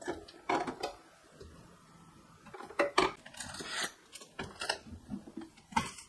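Food containers and packages being set into refrigerator door bins and onto shelves: scattered clinks and knocks of containers against the bins and shelves, with a brief rustle of packaging partway through.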